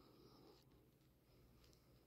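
Near silence: faint room tone with a steady low hum, a soft hiss over the first half second and a couple of faint ticks.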